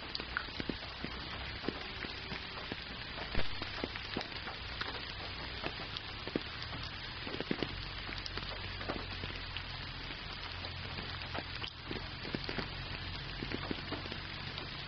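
Steady rain: a dense hiss with many scattered ticks of close drops, and one louder drop strike about three and a half seconds in.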